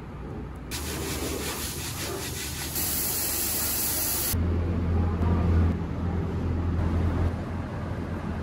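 Glaze spray gun hissing loudly in a spray booth as ceramic toilet parts are glazed, cutting off abruptly about four seconds in. A low steady workshop hum follows.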